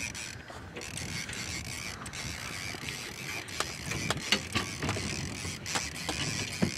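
Fishing reel on a heavy paddlefish snagging rod being cranked against a hooked fish, its mechanism creaking and ticking, with irregular sharp clicks that come more often from about halfway through.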